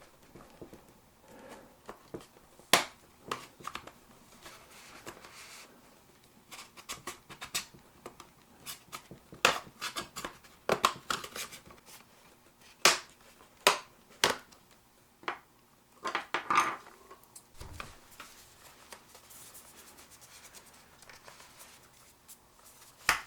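Prying tools working around the plastic base cover of a Dell Inspiron 15 5000 (5591) laptop: irregular sharp plastic clicks and snaps as the cover's clips unclick, with scraping between them. The last few seconds are quieter, apart from one sharp click near the end.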